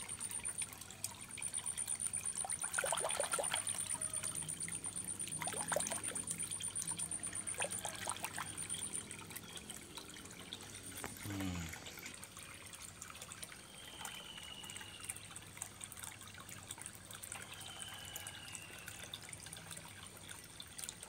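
Koi pond water trickling, with a run of quick small splashes in the first half as koi take floating pellets at the surface.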